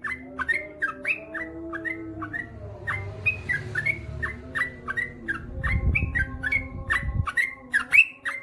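Yellow-vented bulbul (trucukan) singing, a long run of short, quick whistled notes at about three a second. A low rumble sits under the song for a second or so past the middle.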